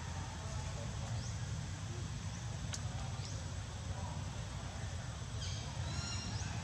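Outdoor background noise: a steady low rumble. There is a sharp click a little under three seconds in, and a short burst of high chirps near the end.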